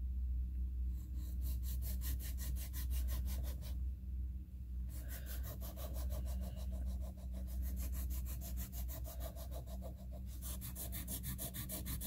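A small flat file rasping quickly back and forth across the cane blade of a bassoon reed, thinning the tip area (zone one) of the whole reed. Rapid, even strokes, with a short break about four seconds in.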